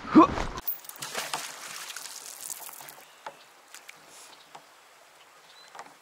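A short voice sound at the start, then water sloshing around a kayak with a few light knocks, dying down.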